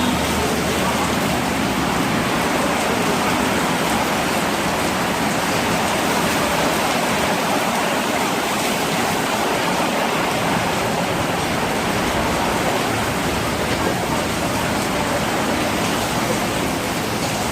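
Rain falling steadily: a loud, even hiss with no breaks.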